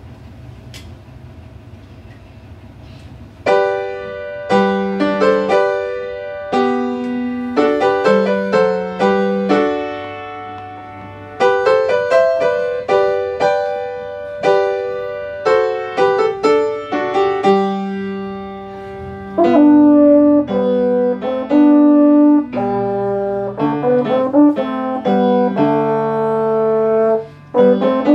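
French horn and piano playing a classical piece together. The piano comes in with chords about three and a half seconds in, and the horn's long held notes sound over it, loudest in the second half.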